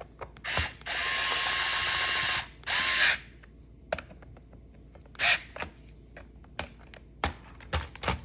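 HOTO cordless electric screwdriver motor running for about a second and a half, then again briefly, driving a screw. Sharp clicks come before and after.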